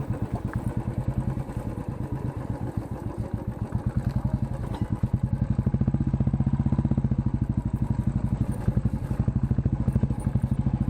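Motorcycle engine running at low speed as the bike rides over a rough, broken track, its exhaust pulsing evenly and getting a little louder about halfway through.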